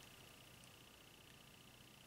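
Near silence: room tone with a faint, steady high-pitched whine.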